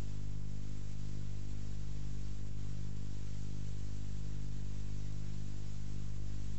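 Steady electrical hum with hiss that does not change, with no other sound on top of it.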